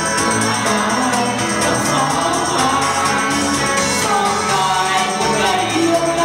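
Live band dance music with a singer, amplified through PA speakers in a large hall, playing steadily.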